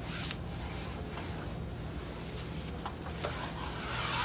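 Cloth wiping across shiny vinyl wallcovering, smoothing the freshly hung sheet flat; a soft rubbing that grows louder near the end, over a steady low hum.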